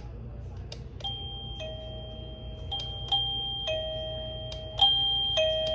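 BISTEE wireless doorbell chime receiver playing one of its selectable electronic chime tunes: a series of clear, held notes that begin about a second in and get louder near the end, after a couple of faint clicks.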